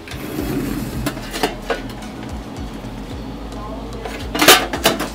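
A spoon stirring corn fritter batter in a mixing bowl, clinking against the bowl a few times. The loudest knocks come in a quick cluster near the end.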